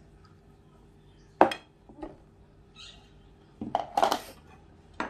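Kitchen utensils knocked and set down on a wooden cutting board: one sharp clack about a second and a half in, a lighter knock shortly after, then a quick cluster of knocks and clatter near the end.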